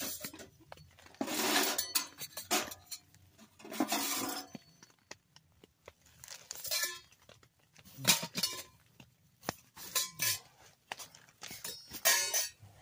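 Metal tent-stove parts being handled: a run of irregular clinks, clanks and scrapes, some ringing briefly.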